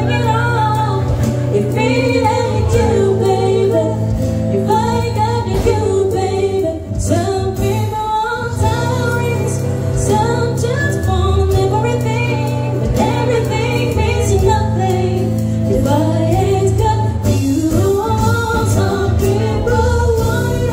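A woman singing live through a PA system, accompanied by strummed acoustic guitar, with a steady low bass line under the voice.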